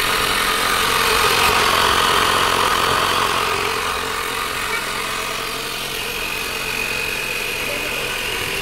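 GoMechanics portable digital tyre inflator running loudly as it pumps air into a car tyre through its hose, a steady mechanical drone. A steady high tone joins about six seconds in.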